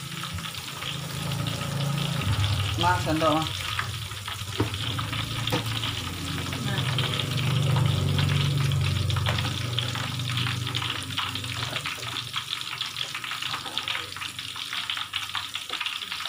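Tofu cubes deep-frying in very hot oil in an aluminium wok, a dense steady crackling sizzle, while a wire-mesh skimmer keeps stirring them round the pan, with a low rumble underneath. The half-cooked tofu is kept constantly moving in the oil so that it puffs up round and crisp.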